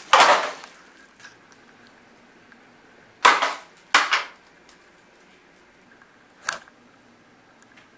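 Plastic shopping bag rustling and small cardboard medicine boxes dropping and clattering onto a hard floor, in four short bursts with quiet between.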